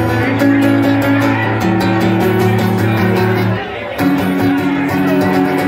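Acoustic guitar strummed in steady chords, with a short break about three and a half seconds in before the strumming picks up again.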